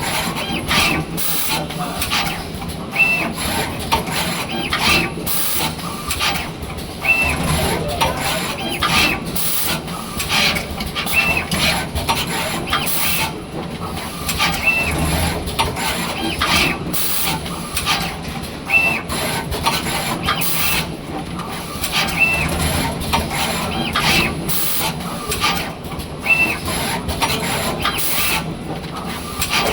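Automatic wire-soldering machine running through its cycle: a steady run of clicks and air hisses, with a short high tone about every two seconds.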